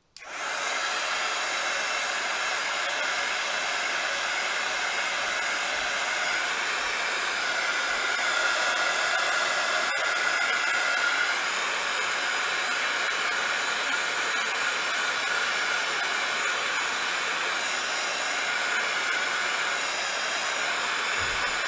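Handheld hot-air dryer switching on and running steadily, a rush of air with a constant fan whine, blowing over wet acrylic paint to dry it.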